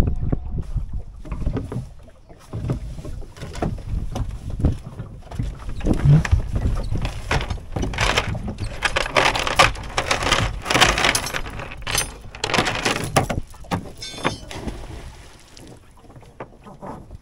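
Irregular knocks and clunks of gear being handled aboard a small sailing boat, with a denser stretch of rushing noise in the middle that dies down near the end.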